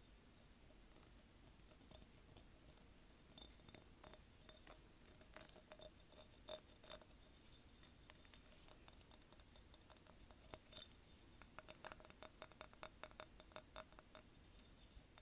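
Light taps on a large spiky seashell held in the hand, faint and crisp. Scattered single taps come first, then a quick run of rapid tapping toward the end.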